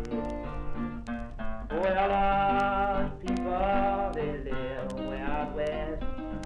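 Old-time country music: plucked acoustic guitar under a melody of long held notes that waver a little, the first starting about two seconds in.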